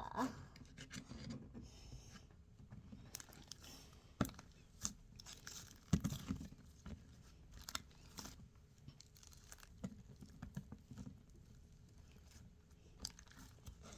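Slime mixed with small foam balls being squished and stretched by hand: faint, irregular sticky crackles and snaps.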